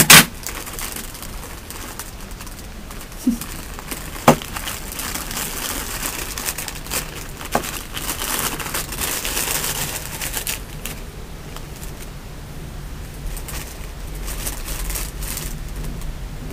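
Plastic packaging crinkling and rustling as a parcel is unwrapped by hand, with a sharp knock at the start and another about four seconds in.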